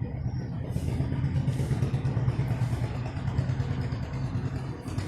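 A person gulping down warm salted water, with soft breaths between swallows about every second. A steady low engine-like rumble runs under it and is the loudest sound.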